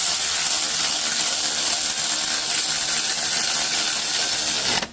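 A power tool running steadily at one speed, cutting off abruptly near the end.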